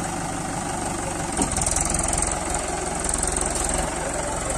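Mahindra 575 DI tractor's four-cylinder diesel engine running while pulling a heavily loaded trolley stuck in sand. About a second and a half in there is a sharp click and the engine grows louder, settling back again near the end.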